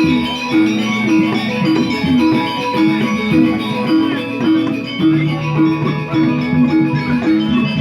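Balinese gamelan angklung: tuned bronze metallophones playing a fast, repeating interlocking figure, with a deeper held tone joining about five seconds in.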